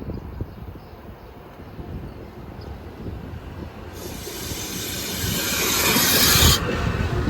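A train coming into the station, its low rumble growing steadily louder. A loud hiss starts about halfway through and stops abruptly near the end.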